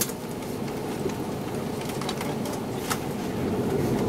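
Underfloor DML30HSI V12 diesel engine of a KiHa 182 railcar running, heard from inside the car as a steady rumble. A few sharp clicks come over it, at the start and near the middle.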